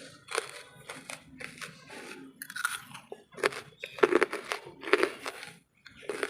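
Wood charcoal being bitten and chewed, a run of crisp crunches with the loudest about four and five seconds in.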